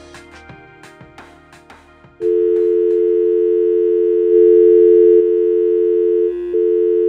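Plucked-note background music fading out, then about two seconds in a loud, steady electronic test tone of two low pitches cuts in, sounding like a telephone dial tone. It swells for about a second in the middle and dips briefly near the end.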